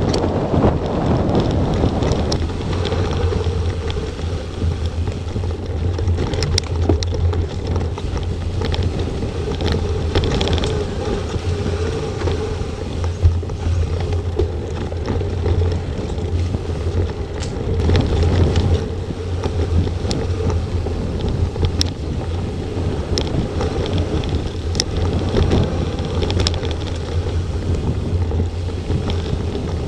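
Mountain bike ridden at speed over dirt track and forest singletrack: wind rumbling on the microphone over the steady roll of tyres on dirt, with sharp clicks and rattles from the bike now and then.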